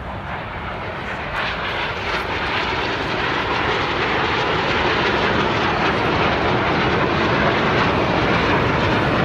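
Jets of the Snowbirds aerobatic team flying past, their engine noise a steady rush that grows louder throughout.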